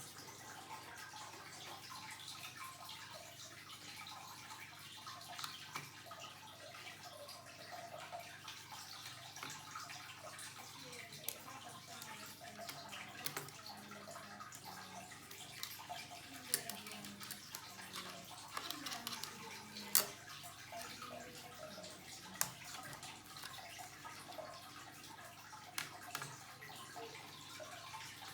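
Steady low hiss with scattered light clicks and taps, about a dozen spread irregularly through it.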